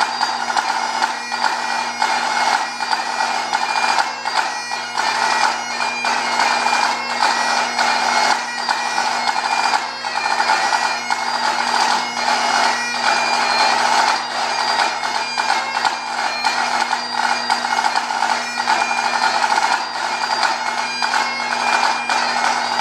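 Great Highland bagpipe playing a tune on the chanter over its steady drones, with a pipe band snare drum playing rapid strokes alongside.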